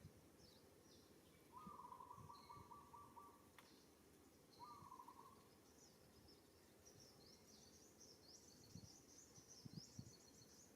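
Faint birdsong: high chirps that become a busy twittering in the second half. Two buzzy trills sound in the first half, and there are a few soft knocks.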